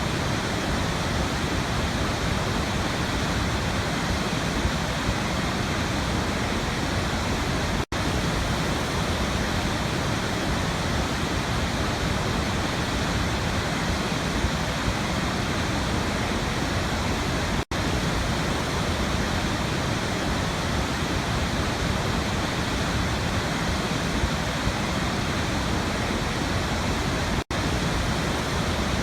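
Waterfall: a steady, even rush of falling water. It cuts out for an instant three times, about ten seconds apart.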